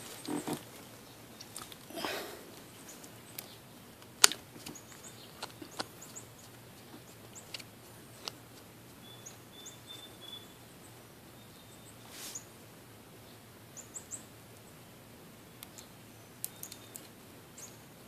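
Scattered small clicks and clinks of metal parts being handled and worked apart, with a few brief rustles and one sharp click about four seconds in. Faint bird chirps now and then in the background.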